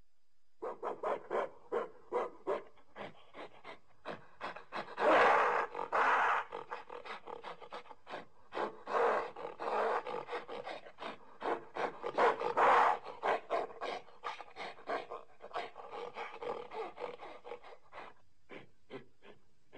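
Gorilla or monkey calls: a quick, panting series of short grunts that builds into longer, louder calls twice, then thins out near the end.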